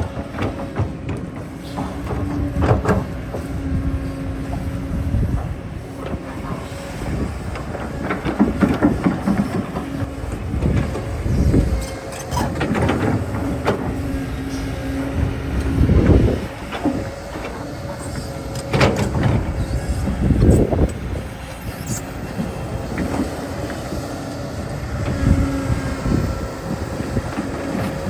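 Earth-moving machine running steadily with a constant whine, with repeated louder stretches of scraping and knocking, as when digging and moving dirt.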